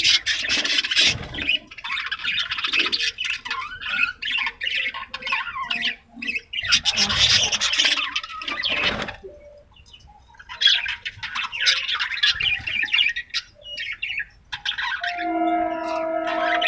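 A flock of budgerigars chattering and chirping in busy bursts, with short lulls about ten seconds in and again near the end.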